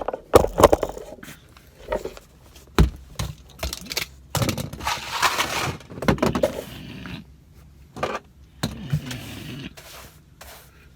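Broom sweeping the floor of a van, with scraping strokes and irregular knocks and thuds of things being moved about. A longer stretch of scraping comes about four to six seconds in.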